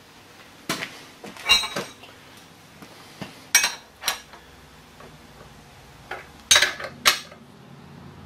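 Hand tools and steel fittings clinking against a vertical milling machine during setup, heard as several sharp metallic clinks in small clusters.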